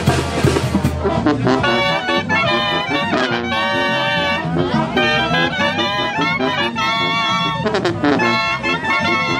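Loud brass-band music: horns play held notes and chords over a steady bass line.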